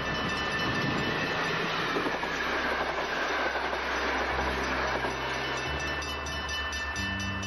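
NS MAT 54 'Hondenkop' electric multiple unit passing at speed: a rushing train noise, loudest about one to three seconds in, then easing slightly as it runs away into the distance.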